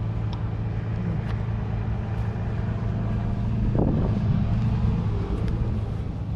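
An engine running steadily at idle, a constant low hum. A brief higher-pitched sweep comes a little under four seconds in.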